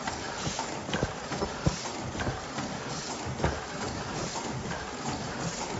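Automatic disposable face mask making machine running: a continuous mechanical clatter with irregular sharp clacks and knocks from its moving parts.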